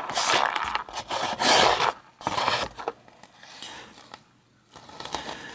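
Hand rubbing and scraping across a cardboard box lid for about two seconds, then quieter handling noise with a few light clicks of the metal pedal being turned in the hands.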